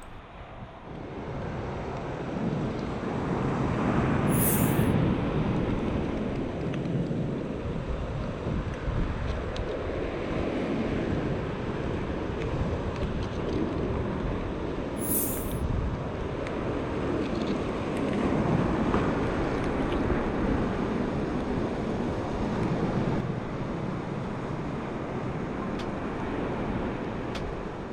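Surf breaking and washing up the beach in swells every few seconds, with wind buffeting the microphone. Two short high hisses stand out, about five seconds in and again about fifteen seconds in.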